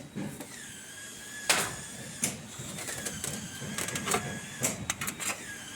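Footsteps going down a flight of stairs: irregular knocks and clunks a second or so apart, with a quicker cluster near the end.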